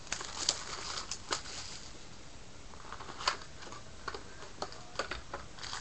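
A sealed box of baseball cards and its packs being handled and opened: scattered light clicks and short crinkly rustles of cardboard and wrapper, coming irregularly with small gaps.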